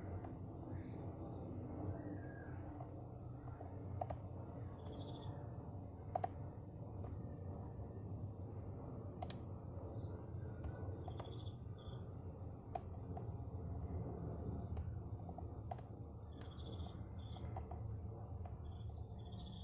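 Crickets chirping in fast, steady pulsed trills at two pitches, with scattered sharp light clicks from the pick and tension tool working the pins of a padlock core.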